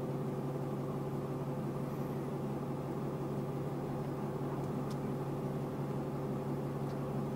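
Ram pickup truck's engine running at a low, even idle while the truck creeps forward, heard inside the cab as a steady hum.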